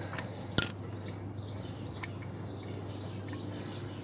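A sharp metallic click about half a second in and a couple of lighter clicks, from a hand working the tight oil-screen cap under a Honda Ruckus scooter's engine. Faint bird chirping and a steady low hum run underneath.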